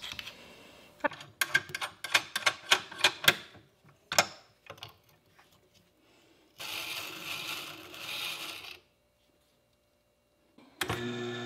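Quick metallic clicks and rattles as a Tormek knife jig is clamped onto a Mora knife and fitted to the sharpener's support bar, with a run of clicks in the first few seconds and one more a little later. A two-second hiss follows midway. Near the end the Tormek T8 water-stone sharpener's motor starts and runs with a steady hum.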